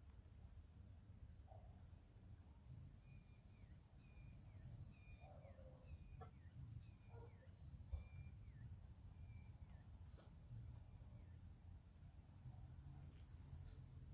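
Faint crickets trilling at night: a high, finely pulsed trill that stops and starts, with a few short falling chirps in between. A single soft click comes about eight seconds in.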